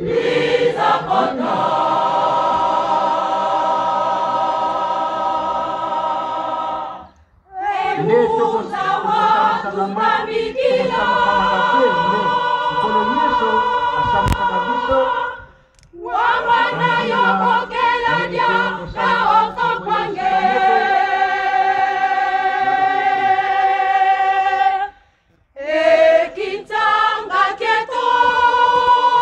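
Large mixed church choir singing unaccompanied in harmony, holding long chords in phrases with three short breaks between them.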